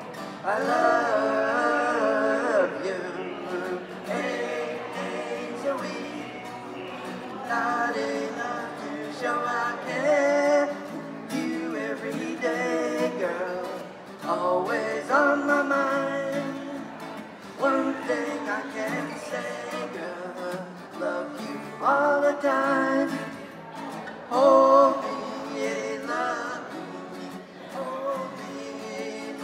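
A man singing while playing an acoustic guitar, a solo song performance.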